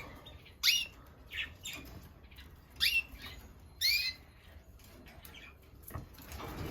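Caged canaries calling: several short, sharp calls, each sweeping down in pitch, spread over a few seconds.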